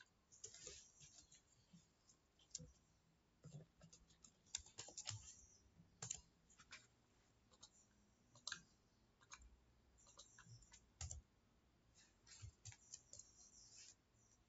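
Faint, scattered computer mouse clicks and keyboard keystrokes, irregular short clicks with a few brief scratchy runs.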